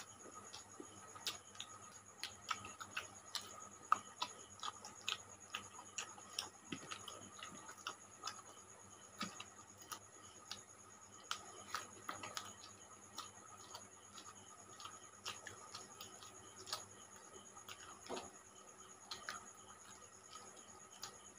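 Faint, irregular small clicks and wet smacks of people eating rice and curry with their hands: fingers working the food on the plates, and chewing.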